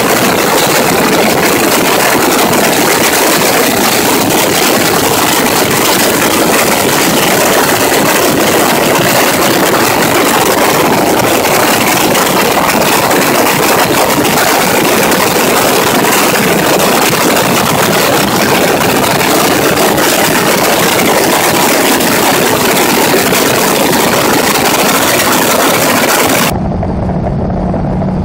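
SNJ-2 warbird in flight: its Pratt & Whitney R-1340 radial engine running steadily under a loud, even rush of air. Near the end the sound cuts to a duller, quieter engine drone with a steady low hum, as heard inside the cockpit.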